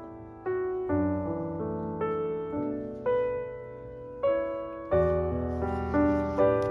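Background music: a slow piano piece, its notes and chords each struck and then fading.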